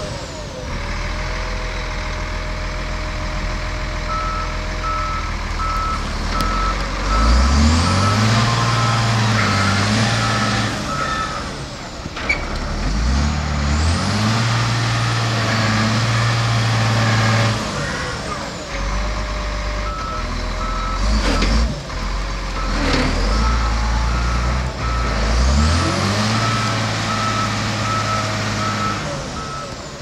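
Volvo G740 motor grader's diesel engine running and revving up and down several times as the machine moves, with its reversing alarm beeping about twice a second in two long stretches. A couple of sharp knocks come through midway.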